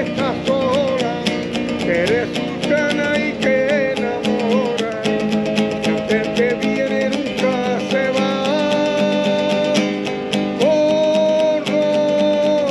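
Acoustic guitar strummed and picked by a street musician, with a wordless, wavering vocal line over it in the first few seconds and a long held note near the end.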